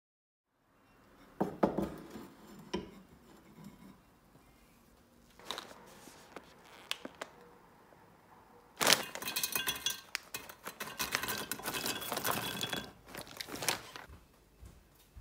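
A plate set down with a knock about a second and a half in, a few light clinks, then cashews poured into the grater's hopper, rattling densely for about four seconds before stopping.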